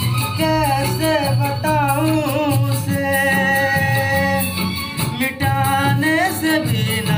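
Hindi film song playing: a melody of ornamented, sliding notes over a steady rhythmic accompaniment.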